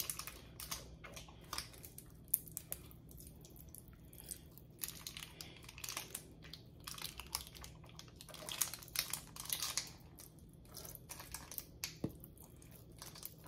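Faint, irregular crinkling and clicking of a plastic lime-juice squeeze bottle being squeezed by hand as juice is dribbled onto raw spare ribs.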